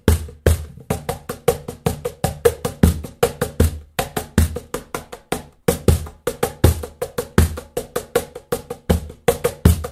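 Handmade birch-ply cajon, its adjustable snare engaged and locked tight, played by hand in a quick steady groove: deep bass strokes mixed with sharper, brighter strokes.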